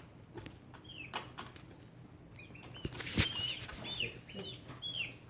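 Birds chirping: many short, high chirps that each fall in pitch, overlapping and growing busier in the second half, with scattered clicks and a sharp knock about three seconds in.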